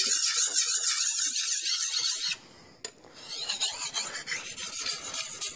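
Norton pocket sharpening stone rubbing in small circular motions on a Tramontina bolo machete's edge, a continuous gritty scraping that refines away the wire edge. About two and a half seconds in it stops briefly with a single click, then the scraping starts again.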